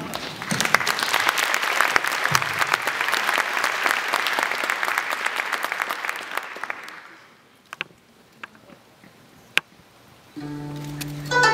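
Audience applauding, the clapping dying away about seven seconds in, with a few scattered claps in the lull that follows. Near the end music starts with a held low note and higher notes above it.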